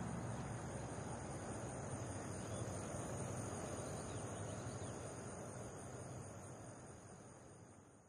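Steady high-pitched insect chorus over a broad wash of outdoor noise, fading out over the last few seconds.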